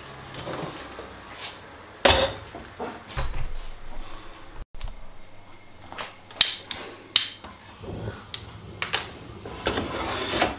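A Fagor Rapid stainless-steel pressure cooker being handled: knocks and scrapes as the lid is locked shut and the pot is set on a gas hob, followed by a run of sharp clicks.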